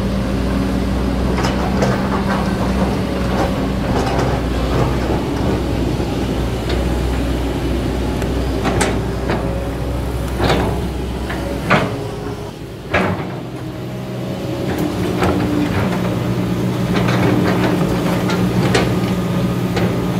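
Kobelco SK200 excavator's diesel engine running steadily while it digs, with sharp knocks and clanks from the bucket and boom striking and shaking out soil. The low engine hum drops for a couple of seconds just past the middle, then picks up again.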